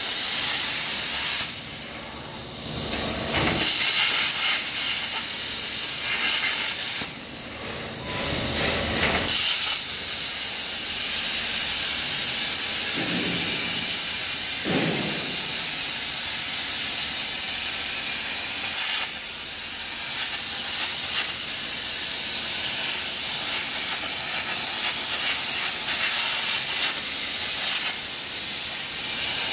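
CNC plasma cutter's torch arc hissing steadily as it cuts steel plate. The hiss drops away twice briefly in the first ten seconds, and two short lower whooshes come a little past the middle.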